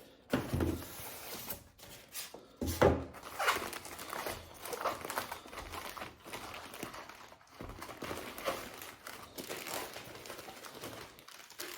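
Plastic and paper packaging crinkling and rustling in irregular bursts of handling, with a few soft knocks, as a boxed model train car is unwrapped.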